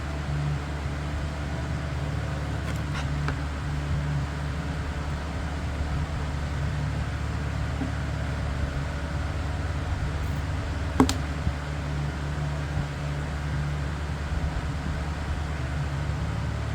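Steady low hum of a running motor, with one sharp snap of a staple gun about eleven seconds in and a couple of faint ticks a few seconds in.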